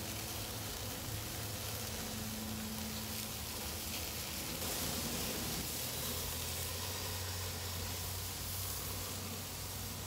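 Marinated skirt steak searing on the grate over hot charcoal, giving a steady sizzle and hiss while it is turned with tongs.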